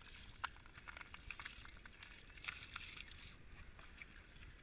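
Mussel shells crunching and clicking faintly underfoot, in scattered short cracks over a low steady rumble.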